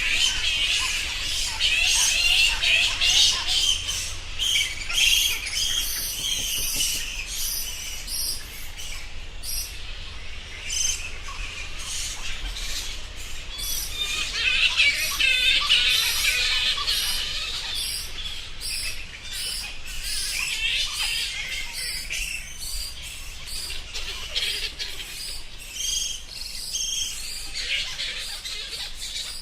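Bats squeaking and chattering: many overlapping short, high chirps, with no pause, busiest a few seconds in and again about halfway through.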